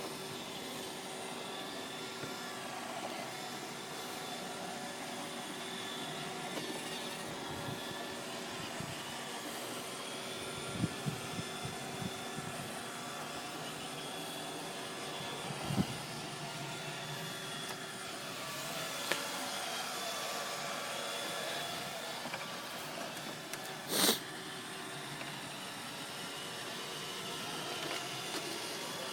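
iRobot Roomba 580 robot vacuum running, a steady whir of its motors and brushes, with a few short knocks and one sharper, louder knock about three-quarters of the way through.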